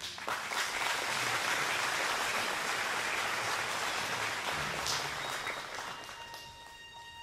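Congregation applauding, the clapping dying away about six seconds in as a steady held instrumental note comes in.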